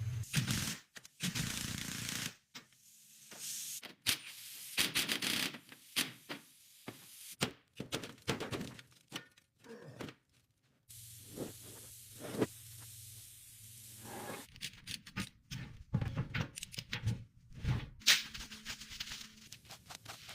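A choppy string of work sounds on a car: thunks, scrapes and clicks, broken by sudden cuts and short silences. A steady low hum runs for a few seconds just past the middle.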